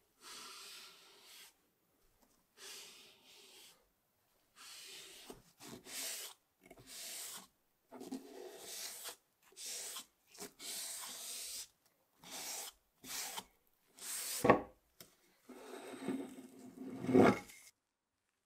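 Wood being sanded by hand, likely the body of an old wooden hand plane: a series of short rubbing strokes, each about a second long, with brief silent gaps between them. Two strokes near the end are louder and fuller.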